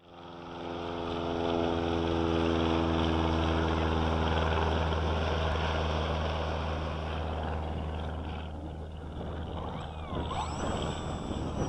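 A steady, low engine drone with a rushing noise, fading gradually over the second half.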